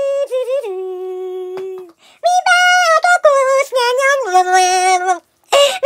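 A high-pitched voice singing wordless held notes that step up and down, with two brief pauses, and a short loud breathy burst near the end.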